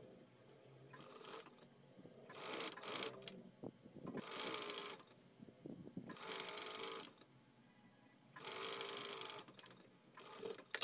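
Electric sewing machine running in about six short bursts of around a second each, with pauses between, as a long fabric strip for a tie strap is stitched in stages.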